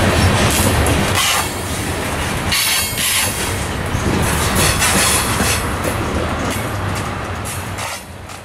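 Loaded coal hopper cars rolling past on a curve: a steady rumble and clatter of steel wheels on rail, broken by several bursts of high-pitched wheel-flange squeal. The level drops near the end.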